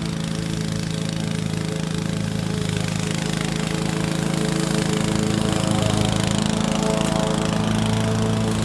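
Honda self-propelled lawn mower's single-cylinder four-stroke engine running steadily under load as it cuts and mulches grass. It grows louder as the mower comes close.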